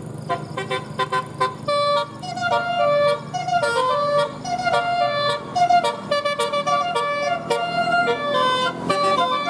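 Indonesian 'telolet' bus horn, a set of multi-tone horns playing a quick tune of short held notes that step up and down.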